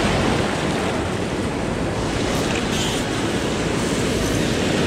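Ocean surf washing in on a sandy beach, a steady rush of breaking waves, with wind rumbling on the microphone.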